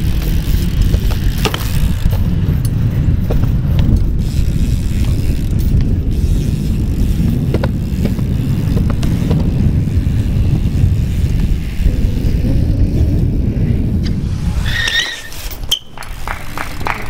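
BMX bike riding on hard ground: a steady low rumble of tyres and wind with scattered ticks and knocks. About 15 seconds in the rumble drops away, a short squeak sounds, and a few sharp knocks follow.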